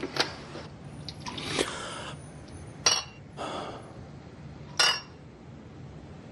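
A few sharp clinks, two of them with a short high ring, between soft swishing noises.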